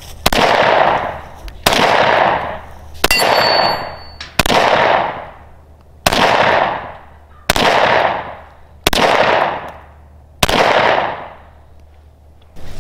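Zastava M57 Tokarev pistol in 7.62x25mm fired eight times at a steady pace, about one shot every second and a half. Each sharp report is followed by about a second of echo.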